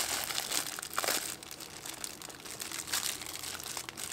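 Clear plastic wrapping crinkling and crackling in irregular rustles as it is pulled and peeled off a power-tool battery pack by hand.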